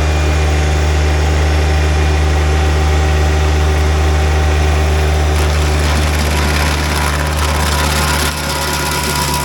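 Tractor engine running steadily under load, driving a stump grinder's 24-inch carbide-toothed wheel. From about halfway through, a harsh grinding hiss builds as the wheel cuts into a dry, dead stump, and the engine note dips near the end.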